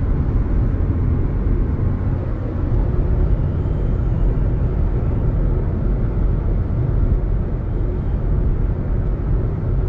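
Steady engine and road rumble inside the cabin of a BMW X5 cruising on the highway, the engine running smoothly now that its cylinder misfire has cleared.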